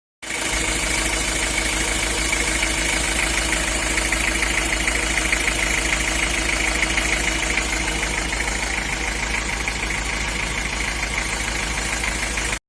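Kia Bongo 2.5 diesel engine idling steadily with a rapid tapping knock, the noise the mechanic probably blames on a valve adjusting screw with its cap broken off, running with excess clearance on its valve.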